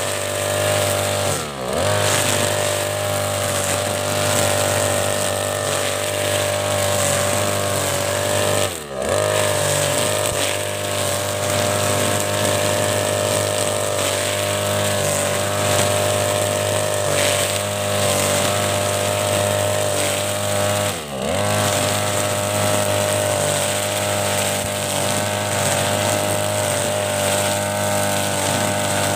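Backpack brush cutter's petrol engine running at high speed while cutting grass. Three times, about a second and a half in, near nine seconds and about 21 seconds in, the engine note drops briefly and picks back up as the throttle is eased and reopened.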